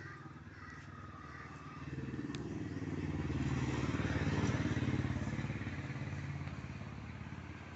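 A passing motor vehicle's engine, growing louder over a few seconds and then fading away as it goes by.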